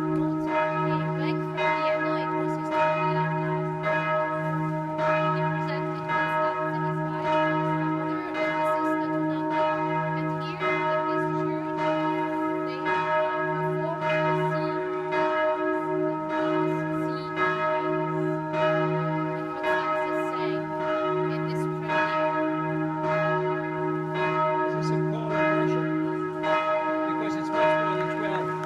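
Two sets of church bells ringing at the same time, their strikes coming fast and irregular and overlapping over a continuous ringing hum.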